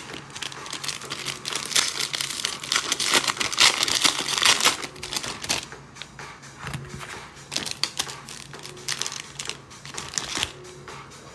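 Trading-card pack wrappers and plastic card sleeves crinkling and tearing as packs are opened and cards handled, loudest from about three to five seconds in.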